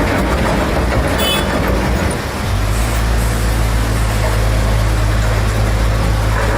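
Motor vehicle engine running with rumbling mechanical noise. About two and a half seconds in, it settles into a steadier low drone. A brief high squeal comes at about one second in.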